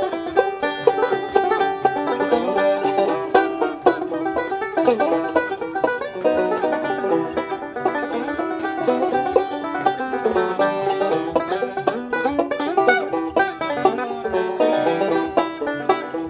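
Bluegrass banjo music: a five-string banjo picking a steady stream of quick notes.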